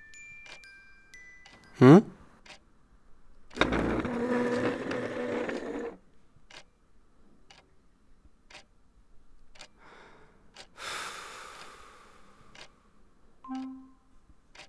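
A series of short sound effects over a faint, steady ticking about one and a half ticks a second: a loud quick sliding sound about two seconds in, a dense ringing burst from about three and a half to six seconds, a softer hiss around eleven seconds, and a few short pitched notes near the end.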